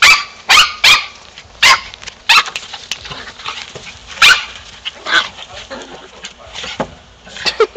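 Dog barking in play: about eight short, sharp barks at uneven intervals, several close together in the first two seconds and a quick cluster near the end.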